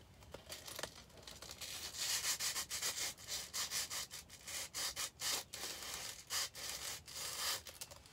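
A clear plastic bag being handled and rubbed in the hands, crinkling and rustling in quick irregular bursts, heaviest from about two seconds in.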